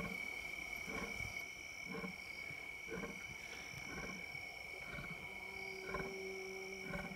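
Night insect chorus of crickets, a steady high trilling, with a frog calling about once a second. A steady low tone joins about five seconds in.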